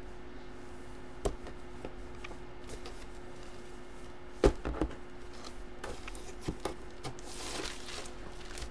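Handling of trading cards and their packaging on a table: scattered light taps and clicks with one sharper knock about halfway, and a brief rustle near the end, over a steady faint hum.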